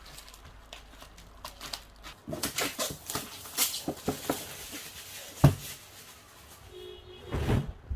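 Packaging and objects being handled at close range: irregular crinkling and rustling with scattered small clicks. There is a sharp knock about five and a half seconds in.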